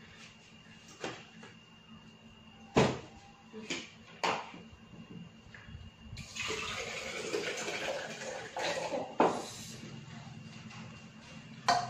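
Chopped ginger root tipped from a bowl into a plastic blender jar: a few sharp knocks as the bowl and jar are handled, then a rushing pour lasting about three seconds, about halfway through.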